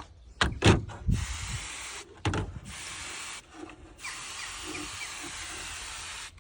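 Hand sprayer spraying soapy water onto cold exhaust manifold joints in three hissing bursts, the last and longest about two seconds, with a few knocks from handling near the start.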